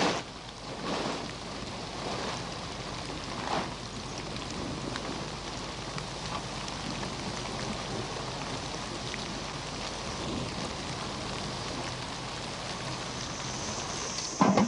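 Steady rain falling as an even hiss, with a few louder knocks or drops in the first few seconds. A high steady tone comes in near the end, and there is a brief loud knock just before the end.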